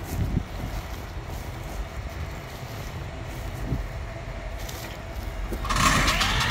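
Krone BiG M 450 self-propelled mower conditioner at work: a steady low engine rumble, joined about five and a half seconds in by a much louder rushing noise as the machine draws close.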